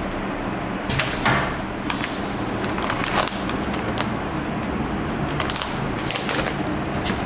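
Crinkling and rustling of a metallised foil moisture-barrier bag as it is pulled out of a nozzle vacuum sealer, over a steady machine hum. There is a clunk about a second in as the sealing bar opens.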